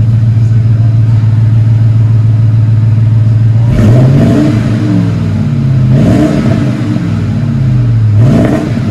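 2008 Ford F-150's 5.4-litre Triton V8 breathing through a single-in, dual-out Flowmaster FX muffler and side-exit tailpipes, heard at the tailpipe tip. It idles steadily, then is revved three times, about four, six and eight seconds in, the pitch climbing and falling back each time.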